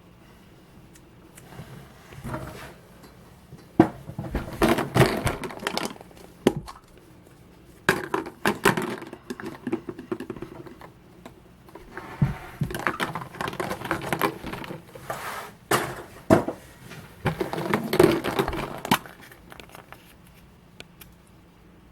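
Foil wrappers of chocolate surprise eggs crinkling as they are unwrapped, in bursts, with sharp clicks of the plastic toy capsules being handled and snapped open.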